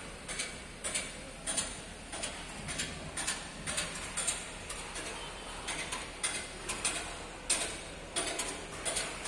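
Irregular metallic clicks and knocks, about one or two a second, over a steady background hiss.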